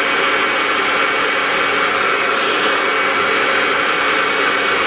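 Hair dryer running steadily, blowing a constant rush of air with a motor hum, pointed at freshly applied mascara to dry the lashes.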